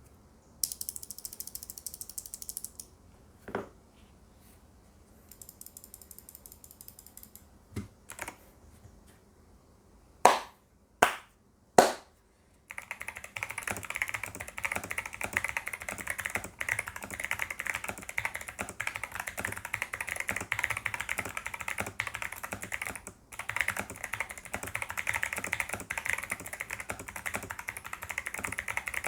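Mechanical keyboard with Kailh Box White clicky switches and PBT keycaps: a few scattered single key presses and three loud separate strikes, then steady fast typing from a little before halfway on, each keystroke a sharp click.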